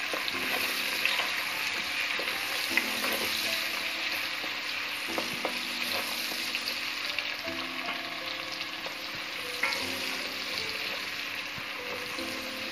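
Chopped onion and garlic sizzling steadily as they fry in hot oil in a stainless steel pot, stirred with a wooden spoon that scrapes and taps against the pot now and then.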